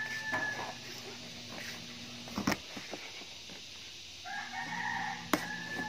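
A rooster crowing: the tail of one crow at the start and one long crow near the end. Two sharp clicks, from a knife cutting open a cardboard box, come about two and a half seconds in and again near the end.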